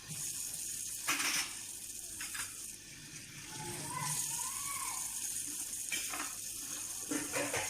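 Tap water running steadily into a kitchen sink while dishes are washed, with a few short knocks of dishes against each other or the sink about a second in, near the middle and near the end.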